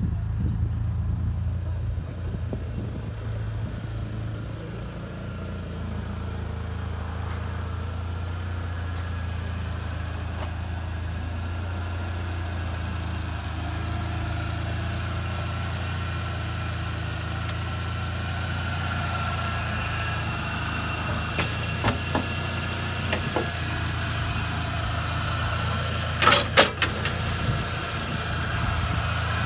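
1993 Ford Mustang's 2.3-litre four-cylinder engine idling steadily. A few sharp clicks, then a short clatter of knocks about three-quarters of the way through.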